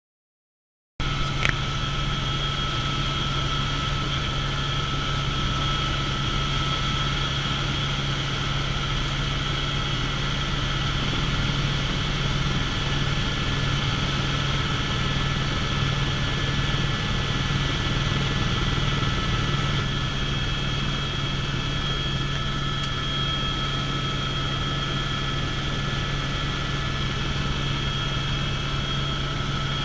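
Helicopter in flight: a steady, loud drone of rotor and turbine with a low hum and a thin high whine, cutting in suddenly about a second in.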